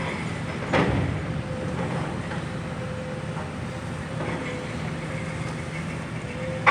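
Heavy demolition machine running hard, its diesel engine droning steadily, while it pulls on the cut steel I-beams of the structure. A loud bang about a second in, and a sharper, louder bang at the very end.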